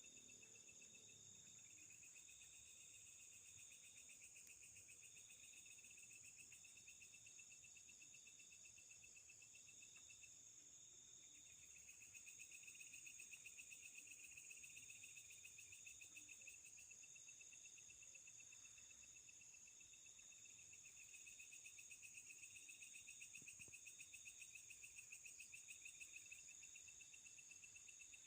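Faint chorus of night insects: a steady high-pitched whine, a trill repeated in short phrases about a second long, and a lower pulsing trill that swells and fades several times.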